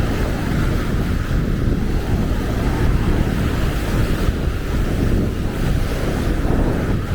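Wind buffeting the microphone over the steady wash of small Baltic Sea waves breaking on a sandy shore, with a continuous rumble.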